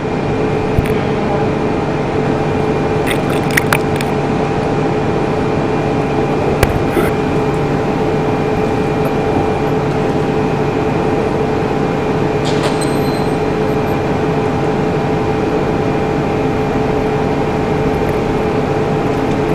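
A steady machine-like drone with hiss and two held tones, with a few light clicks about three to four seconds in and near seven seconds in.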